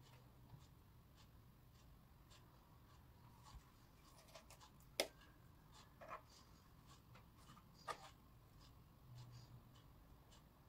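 Near silence, with faint taps and scrapes of a metal knife and hands working filling into a scored aubergine on a wooden cutting board. A sharper click comes about five seconds in, then two softer knocks.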